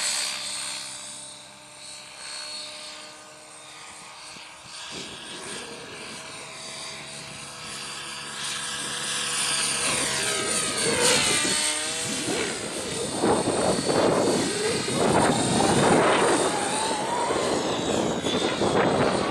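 Blade 700 X Pro electric RC helicopter flying aerobatics, its motor and rotor whine sweeping up and down in pitch as it manoeuvres. It is fainter at first and grows louder in the second half.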